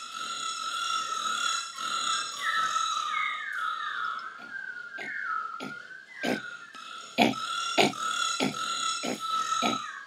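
Music with a high, whistle-like lead held mostly on one note, bending up and down in pitch for a few seconds. About halfway through, a loose run of sharp knocks joins in.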